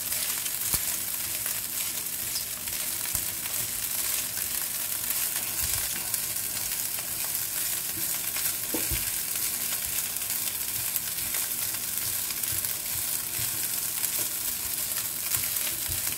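Cold cooked rice and fried egg sizzling steadily in a frying pan as they are stir-fried, with a wooden spoon scraping and knocking against the pan now and then.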